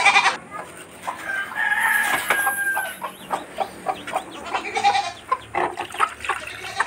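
Chickens calling: a rooster crows once, a long held call about a second and a half in, over short scattered clucks and peeps from a Rhode Island Red hen and her chicks.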